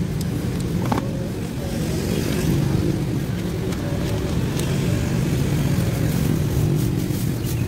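A small engine running steadily at idle, with a few light clicks over it.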